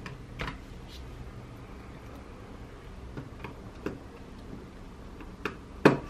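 Sparse light clicks and taps of hands and a small screwdriver working on a laptop's plastic base while its motherboard is screwed down. There are about six of them, the loudest near the end.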